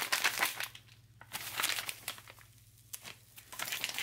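Crinkling of a foil-laminate military ration pouch being gripped and folded by hand, in three bursts with a lull a little past halfway.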